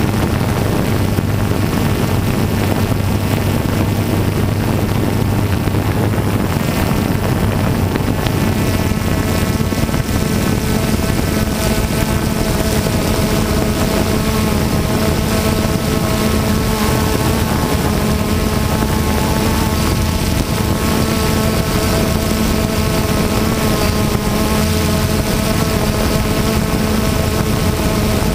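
Steady motor and propeller noise from the aircraft carrying the camera, mixed with wind rushing over the microphone. Its tones shift upward about eight seconds in and then hold steady.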